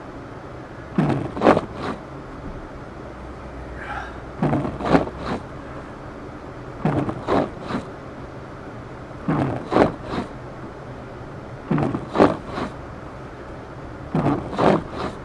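Car windshield wipers sweeping through snow, a paired swish-and-thump of the blades out and back about every two and a half seconds, over a steady hum of the car on the road inside the cabin.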